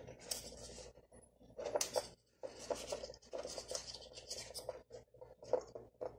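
Insulated electrical wire being handled and dragged over a tabletop: irregular scratchy rustles and scrapes as the stripped copper ends are moved about, with a few sharper clicks.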